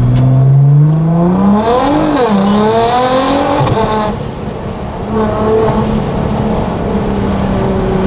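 Nissan GT-R R35's twin-turbo V6, fitted with downpipes and bigger intakes, accelerating as heard from inside the cabin. The revs climb for about two seconds and dip at a quick upshift, with a rushing hiss around the shift. The engine then settles to a steady cruise.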